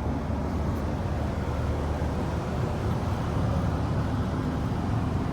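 Steady low drone inside a 1999 Blue Bird bus with its engine idling and its air conditioning running, an even rumble with a hiss over it.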